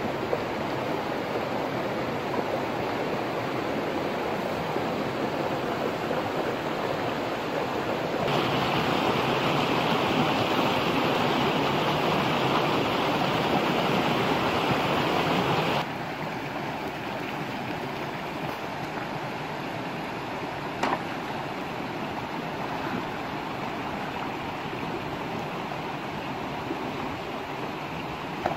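Steady rushing water of a shallow rocky stream, stepping louder about eight seconds in and dropping back about sixteen seconds in, with one sharp click about twenty-one seconds in.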